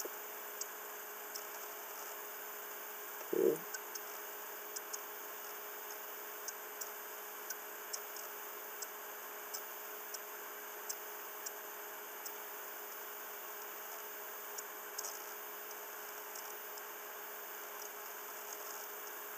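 Faint steady electrical hum and hiss, with light sharp ticks every half second or so and one brief low sound about three and a half seconds in.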